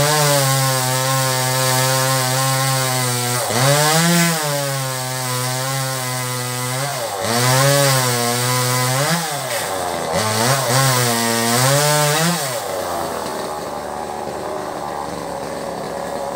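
Newest 258 top-handle two-stroke chainsaw with a new Husqvarna chain cutting old teak wood. The engine pitch dips and recovers several times as the chain bites and bogs under load. The cutting stops about 13 seconds in, leaving a quieter steady noise.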